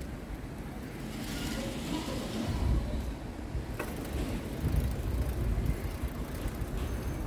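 Wind rumbling on the microphone of a moving bicycle, with traffic noise from a road alongside. A car passes about a second or two in, and there is a single click about four seconds in.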